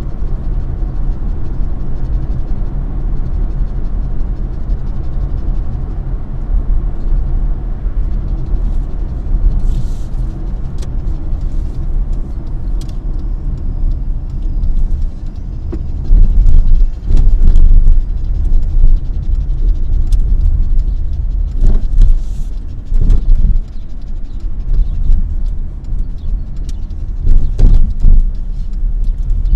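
Car driving, heard from inside the cabin: a steady low rumble of engine and road. From about the middle on there are several louder low bumps and surges, with a few short knocks.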